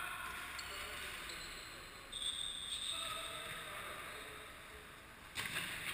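Futsal play echoing in a gym hall: sneakers squeak briefly on the court floor about two seconds in, and the ball is struck with a sharp thud near the end.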